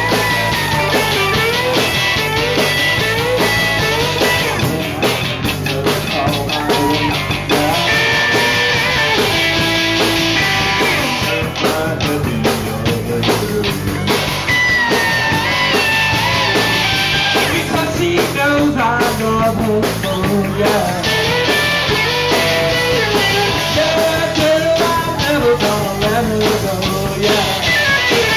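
Live rock band playing: distorted electric guitars, bass guitar and drum kit, loud and steady, with melodic lead lines over the beat.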